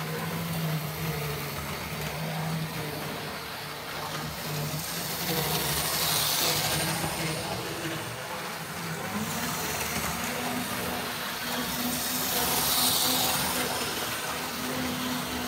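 OO gauge Tri-ang Class 31 model diesel locomotive running around the layout: a steady small electric motor hum with wheel noise on the track, swelling twice about seven seconds apart as the train passes close.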